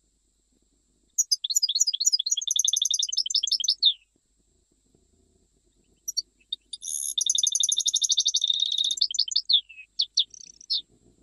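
European goldfinch singing in the Jijel (Algerian) song style. A burst of rapid, high twittering notes comes about a second in. After a pause of about two seconds, a longer phrase of fast trills and twitters follows and breaks off near the end.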